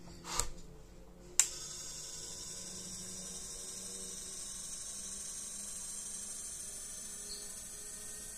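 A couple of brief handling noises, then a sharp click about a second and a half in, after which a small electric cup-turner motor runs with a steady hum and faint whining tones.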